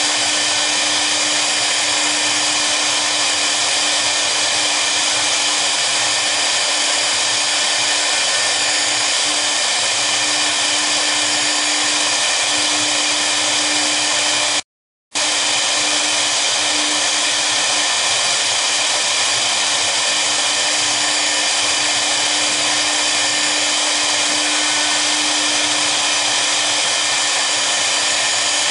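Two spindles of a double-head CNC router running at high speed while their V-bits engrave a board: a loud, steady machine whine with cutting noise. The sound drops out for about half a second midway.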